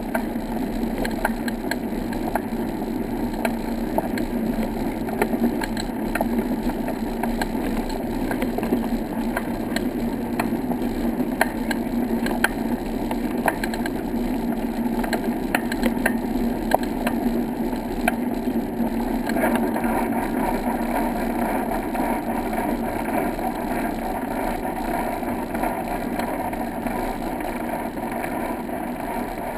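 Steady running rumble of a small vehicle travelling along a brick-paved path, with a constant low hum and many small rattles and clicks. The sound shifts slightly about two-thirds of the way through.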